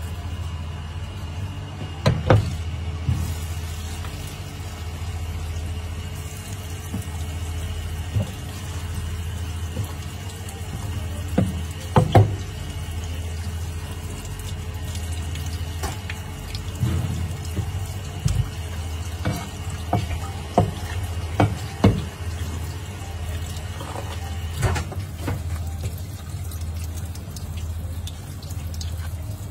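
Tap water running steadily into a sink and onto a fish on the cutting board, over a low hum. Sharp knocks from the knife and fish on the cutting board stand out, about 2 and 12 s in and several times around 20 to 22 s in.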